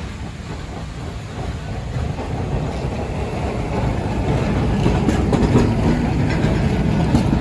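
Vintage electric tram rolling past close by, the rumble of its steel wheels on the rails growing louder as it nears, with a few clicks from the wheels over rail joints in the second half.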